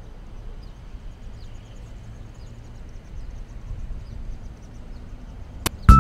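Outdoor ambience: a steady low rumble with faint, short, high chirps repeating every second or so, typical of birds. Near the end, loud keyboard music cuts in with sharp struck notes and held tones.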